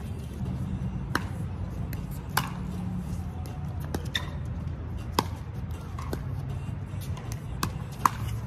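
Pickleball paddles striking the plastic ball in a doubles rally: a string of sharp pops roughly one a second.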